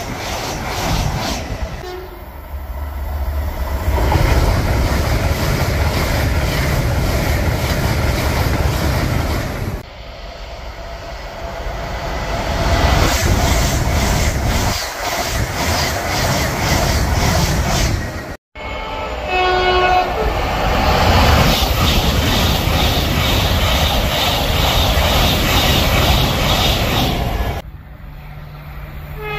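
LNER Azuma high-speed trains running through a station at speed: a loud, steady rush of wheels on rail and air along the passing coaches, with a clickety-clack of the wheels. About two-thirds of the way in a train's two-tone horn sounds in short blasts, and the horn sounds again right at the end as another Azuma approaches.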